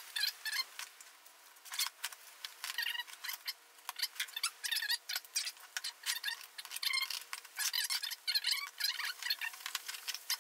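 Fillet knife cutting and scraping through a mangrove snapper fillet on a plastic cutting board, as short clicks and scrapes. Behind it, repeated quick high chirping keeps going throughout.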